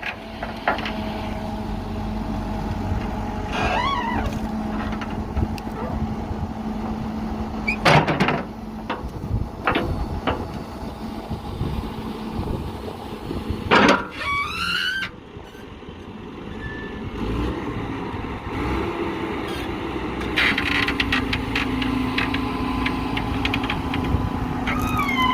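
JCB backhoe loader's diesel engine running steadily while the machine works, with two loud knocks about a third and just over halfway through. The engine eases off for a few seconds and then runs on at a slightly higher pitch.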